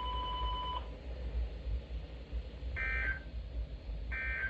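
NOAA Weather Radio 1050 Hz warning alarm tone cutting off under a second in. Then, after a pause, two short warbling digital data bursts about 1.3 seconds apart: the SAME end-of-message code sent over a weather-radio receiver.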